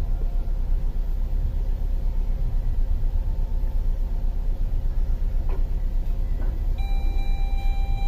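2005 Saturn Ion's 2.2-litre four-cylinder engine idling with a steady low rumble. A steady electronic tone comes in near the end.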